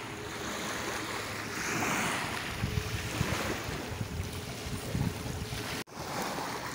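Wind buffeting the microphone outdoors: a steady rushing noise with irregular low gusts, cutting out for an instant near the end.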